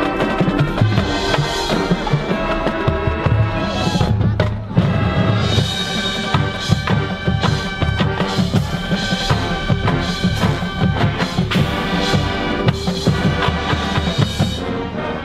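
Marching band playing full out: wind chords held over a driving battery of snare and bass drums, with a brief break about four and a half seconds in.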